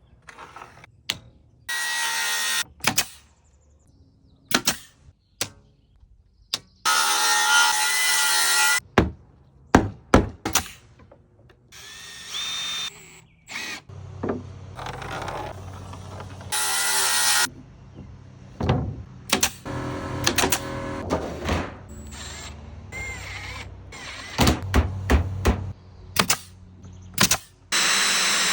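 Power tools working wood in short runs of one to two seconds each, with many sharp wooden knocks and clunks in between.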